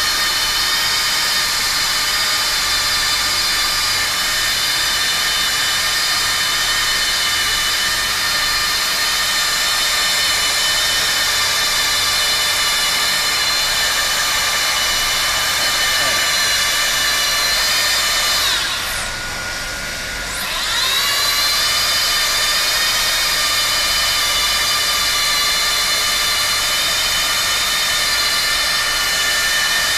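Handheld plastic welder running with a steady, high-pitched motor whine. About two-thirds of the way through, the whine drops in pitch and loudness, then climbs back up over a couple of seconds.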